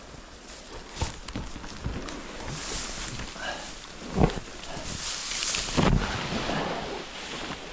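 Paddling a small boat down a shallow creek: water sloshing with several knocks and thuds, the loudest about four and six seconds in.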